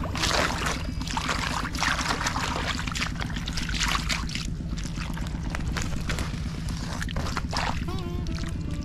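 A steady low engine drone with irregular bursts of water splashing.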